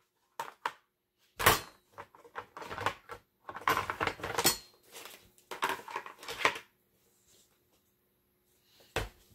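Hard plastic composter panels clattering and knocking against each other and the metal frame tubes as they are lifted and shifted in a pile of parts, in several bursts. A quiet gap of about two seconds near the end, then one sharp knock.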